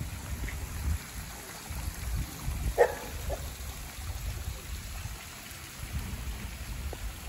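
A small woodland creek running and trickling over rocks, under a gusty low rumble of wind on the microphone. About three seconds in comes a brief sharp call-like sound, with a fainter one just after.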